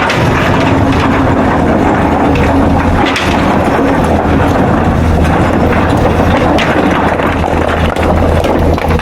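Excavator at work: its diesel engine runs steadily under load, with repeated knocks and clatter throughout.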